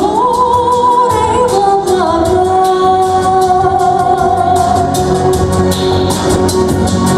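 Song playing as dance accompaniment: a voice holds long sustained notes that step from one pitch to the next over a steady percussion beat.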